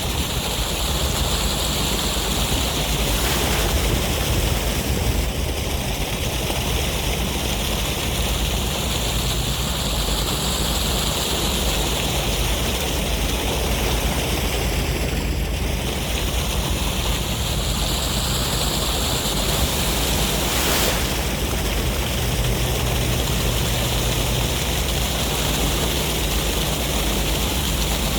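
Ocean waves and sea breeze making a steady, unbroken rush, with a slow sweeping hiss in the upper range and no single wave breaks standing out.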